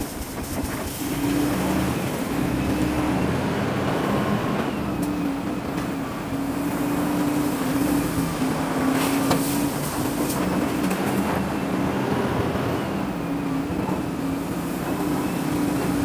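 Wheel loader's diesel engine running under load while it lifts and tips a bucket of gravel into a dump truck, revving up about a second in and holding steady, with a couple of sharp knocks.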